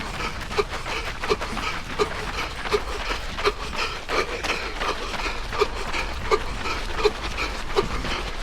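A runner breathing hard and wheezing, a short pitched rasp on each breath repeating about every three-quarters of a second.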